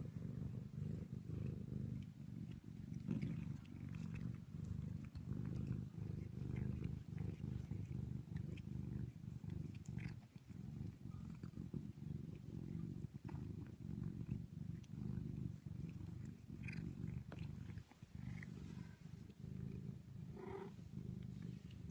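Mother cat purring steadily close up while nursing her kittens: a continuous low rumble, with a few faint short sounds over it near the end.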